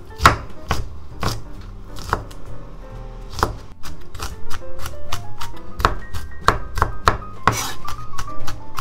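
Kitchen knife chopping garlic cloves on a wooden chopping board: sharp knocks of the blade on the board, a few spaced cuts at first, then quicker chopping, about two or three a second, from about halfway through.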